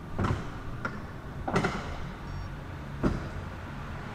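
Sectional garage door rolling open: a steady low hum with a sharp clunk roughly every second and a half.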